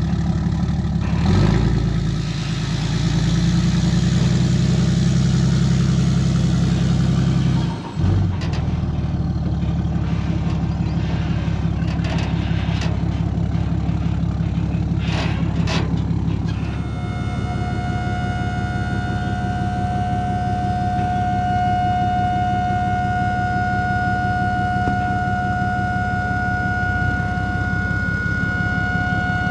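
Engine running steadily, dipping briefly about eight seconds in. From a little past halfway a steady high whine joins it and holds.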